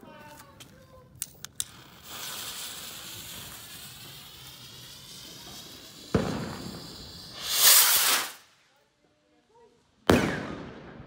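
A firework rocket launch. The fuse hisses steadily from about two seconds in, and the rocket motor catches about six seconds in with a sudden whoosh that grows into a loud rushing hiss as it climbs. After a short near-silence, the shell bursts with a sharp loud bang near the end, echoing away.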